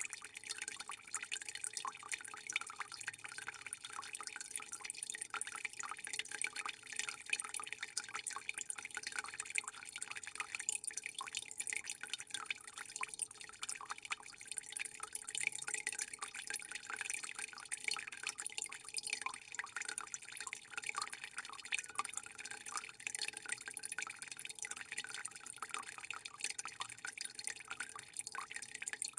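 Steady trickling and dripping of water, a dense patter of small drops that keeps on without a break, over a faint steady hum.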